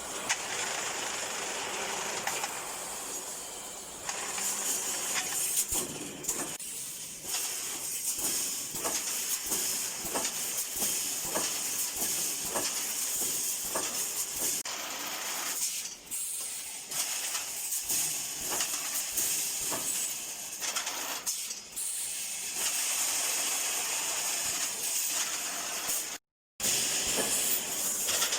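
GWCZ2600JZ-E automatic wire mesh welding machine running: a steady hiss of its pneumatic air cylinders with many sharp, irregular clicks and clanks from the welding and wire-feed mechanism. The sound cuts out briefly near the end.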